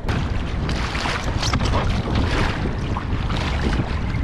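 Wind buffeting the microphone in a steady low rumble, over water splashing against a kayak's hull.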